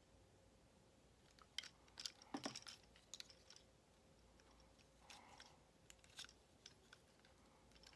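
Faint plastic clicks and snaps from a Transformers Studio Series Voyager Class Megatron action figure's joints and parts being moved during transformation: a cluster of sharp clicks about one and a half to three and a half seconds in, and a few more later.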